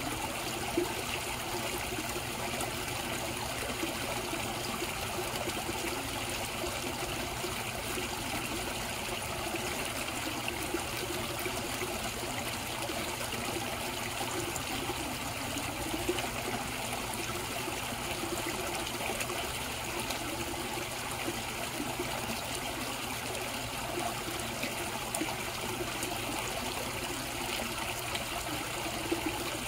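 Koi pond water running and trickling steadily, with a few faint brief clicks.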